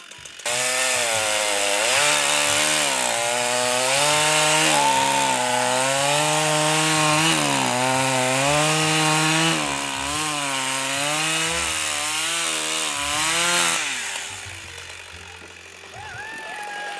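Petrol chainsaw cutting through a thick log: the throttle opens about half a second in, and the engine's pitch sags and recovers again and again as the chain bites into the wood. After about thirteen seconds the cut is through and the saw drops back to idle.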